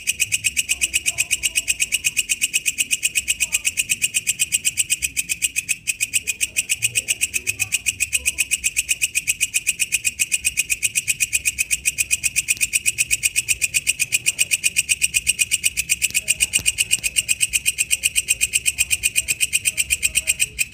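Walang kecek bush cricket calling: a steady, rapid pulsed chirp of about seven strokes a second, high-pitched, stopping suddenly at the very end.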